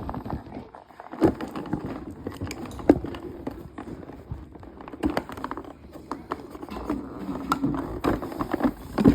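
Cardboard and plastic toy packaging being handled and pulled apart, with irregular clicks, crinkles and scrapes as an action figure is worked free of its box.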